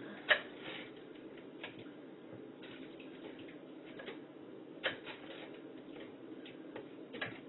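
A spoon stirring chicken and water in a crock pot, with scattered clicks and knocks against the pot; the loudest knock comes just after the start.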